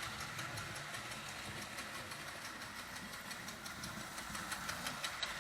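Vintage Marx O27 toy steam locomotive running steadily around its track, its small electric motor and wheels making a continuous mechanical whirr and clatter with faint regular ticks.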